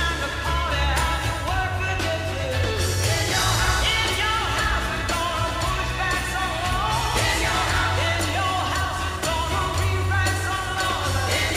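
Background music: a song with a sung vocal over a steady drum beat and bass.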